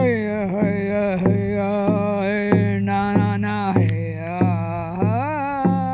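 A drum beaten in a slow, steady pulse, about three strokes every two seconds, each stroke ringing low. Over it a voice sings long wordless tones that slide and waver in pitch: healing toning with the drum.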